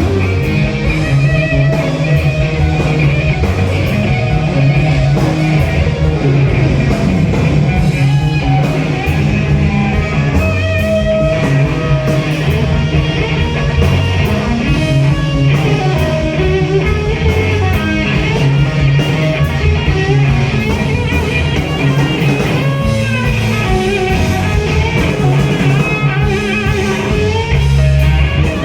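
Live rock band playing: electric guitar with bent, sliding notes over bass and drums, no singing.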